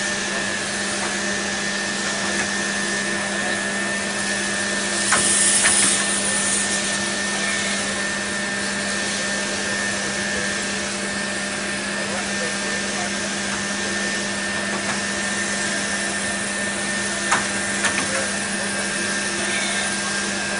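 CNC tube-bending machine running with a steady mechanical hum. About five seconds in there is a loud hiss lasting about a second, and near the end there are a few sharp clicks.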